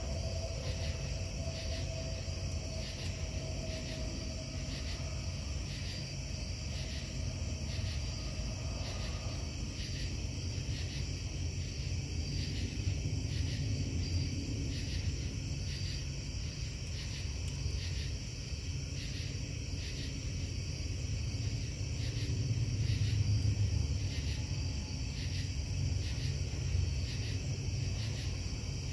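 Steady low industrial rumble from the Casting Solutions foundry at night, with insects chirping in a regular high-pitched pulse over it. A faint hum tone in the mix fades out about a third of the way in.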